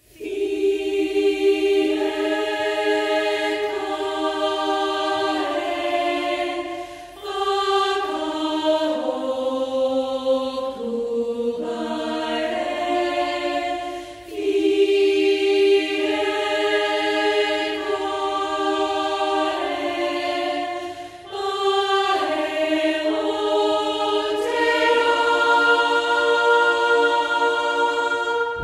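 Choral music: voices holding slow, sustained chords that shift every second or two, in long phrases broken by short pauses about every seven seconds.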